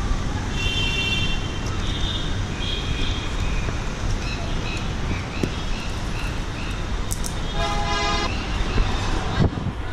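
Steady city traffic noise with a car horn tooting twice: a short high toot about half a second in and a fuller, slightly longer one about eight seconds in.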